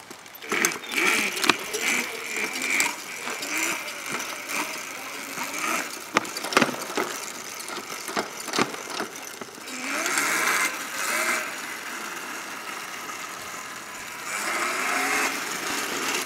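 A 1500-watt brushless electric scooter being ridden over pavement: its frame and suspension rattle and clatter with many sharp knocks, over a motor whine that rises and falls with speed.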